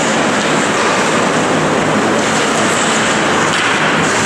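Steady, dense noise of an indoor ice hockey arena during play, with the crowd and the action on the ice blended into one even rush and no single event standing out.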